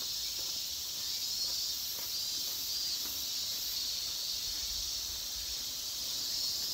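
A chorus of cicadas buzzing steadily and high-pitched, with a faint pulsing in its highest notes.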